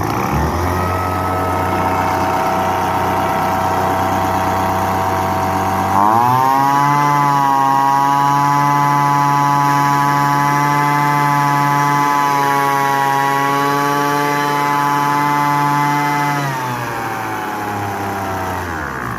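Poulan Pro PPV 2000LE leaf blower's 25cc two-stroke engine running on its newly replaced fuel lines. It idles for about six seconds, revs up and holds a steady higher speed for about ten seconds, then drops back to idle near the end.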